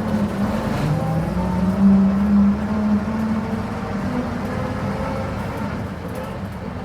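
Articulated bus engine running, its pitch rising about a second in as it speeds up, then holding steady.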